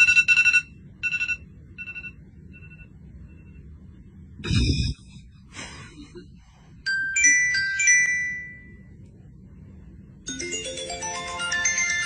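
A smartphone ringtone melody. Its last notes fade out in repeating echoes over the first couple of seconds, and the melody starts up again near the end. In the gap there is a short loud burst about halfway through, then a few clear tones, some of them falling, a little later.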